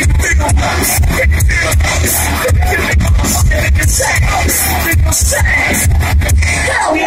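Rap-metal band playing live through a concert PA, heard loud from within the crowd: heavy bass and a pounding drum beat with vocals over them. Right at the end the bass drops out.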